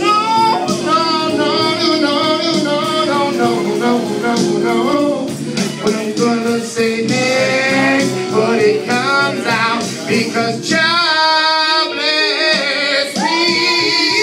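A man singing live into a microphone over music, his voice sliding and bending through runs without clear words. About eleven seconds in the low accompaniment drops away, and near the end he holds one long high note.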